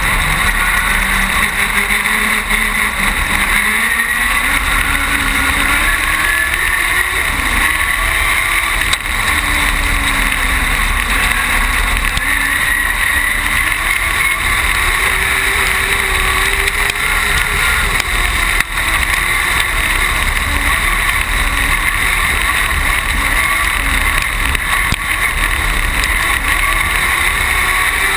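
Dwarf race car's motorcycle engine running hard under racing load, heard on board, its pitch rising and falling with throttle and gear changes.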